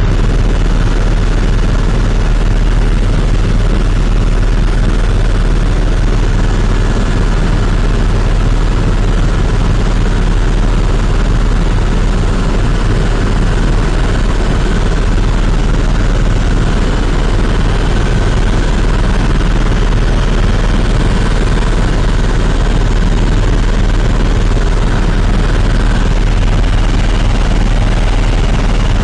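Helicopter engine and rotors running steadily in flight, heard from inside the cabin as a loud, unchanging low drone with a rushing noise over it.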